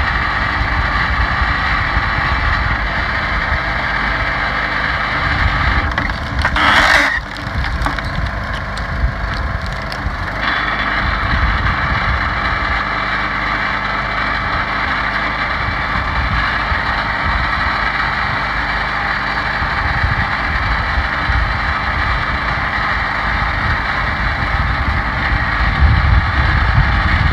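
The 11-horsepower Honda engine of a commercial-grade 2004 American-brand hydraulic log splitter runs steadily, driving its hydraulic pump. About seven seconds in there is a brief, louder rush of noise.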